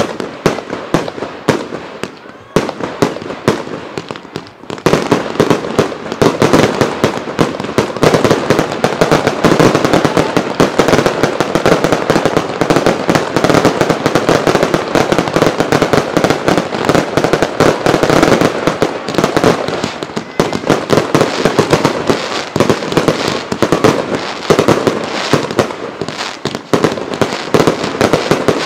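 Fireworks going off: quick separate bangs at first, then from about five seconds in a dense, continuous barrage of bangs and crackle.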